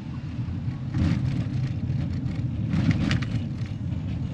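Steady low rumble of a car's engine and road noise heard from inside the moving vehicle, with two brief louder noises about one and three seconds in.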